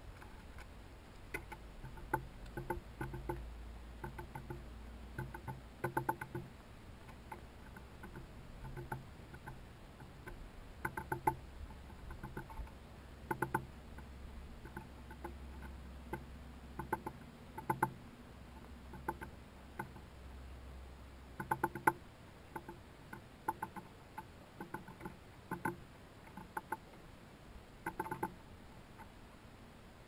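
Small songbirds pecking at a food cake on a wooden feeder board: irregular sharp taps, often in quick runs of two or three.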